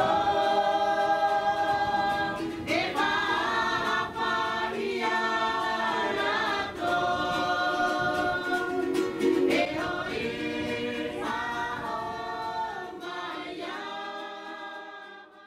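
A choir of several voices singing in long held chords that change every few seconds, fading out near the end.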